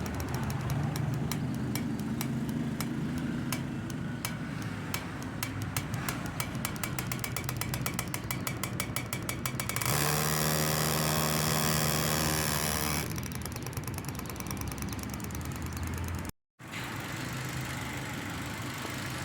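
Dongfeng Glory car engine running with an unstable, misfiring idle and a repeated ticking. For about three seconds near the middle it runs louder and steadier, then it settles back. The misfire and uneven idle are the sign of lost compression, which the mechanic traces to a poorly sealing exhaust valve.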